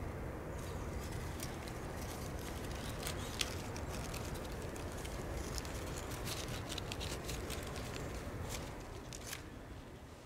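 Close handling noise: a leafy twig and clothing rustling and crackling with many small clicks over a low steady rumble, fading out at the end.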